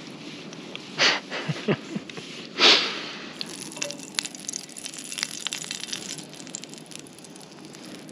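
Canister camp stove burner hissing under a frying pan while an egg crackles and sizzles in butter, with two louder rushes of noise about one and two and a half seconds in. The hiss cuts off suddenly at the end as the stove is shut off.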